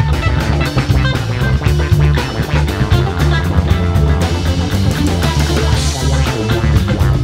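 Live psychedelic rock band playing: two electric guitars, bass guitar, keyboards and a drum kit.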